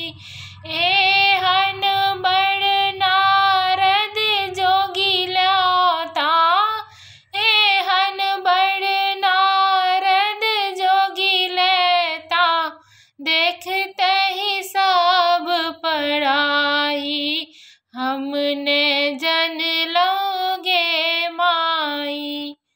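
A woman singing a Maithili Maheshwani song, a Shiva devotional song, solo with no instrument heard, in long held, wavering phrases with three short breaks for breath.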